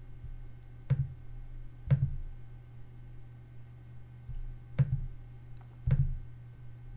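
Four sharp computer mouse clicks, two close together near the start and two more near the end, over a steady low hum.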